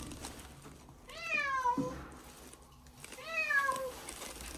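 Domestic cat meowing twice, each a drawn-out call that falls in pitch.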